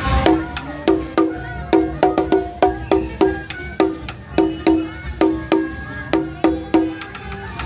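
Small ceremonial drum struck with a wooden stick at about three strokes a second, sometimes in quick pairs. Each stroke is a sharp tap with a short ring.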